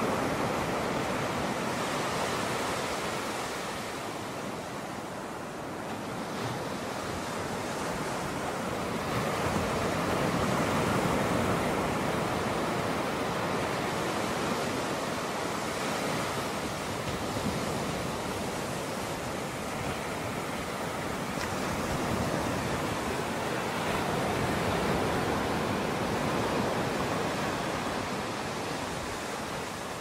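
Ocean surf breaking and washing up a sandy beach. It makes a continuous rushing wash that swells and eases every several seconds.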